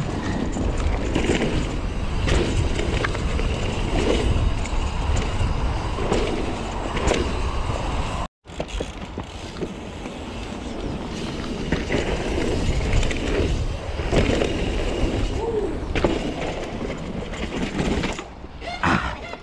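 Mountain bike riding over dirt: steady tyre and wind noise with scattered rattles and knocks. The sound cuts out sharply for a moment about eight seconds in.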